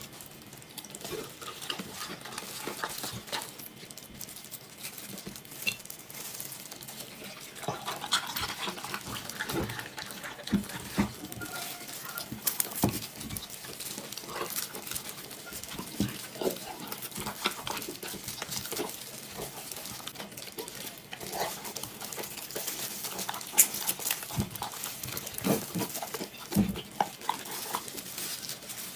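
Golden retriever eating cooked meat from a bowl: irregular wet chewing and smacking, with scattered sharp clicks.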